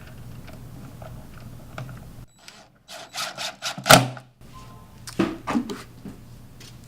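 A quick series of sharp clicks and knocks, the loudest about four seconds in and a few more a second later: wood and hinge hardware being handled as a cabinet door is fastened to the face frame.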